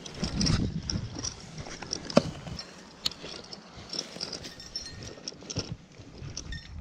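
Footsteps crunching and rustling through dry brush and grass, with irregular crackles and one sharp click about two seconds in.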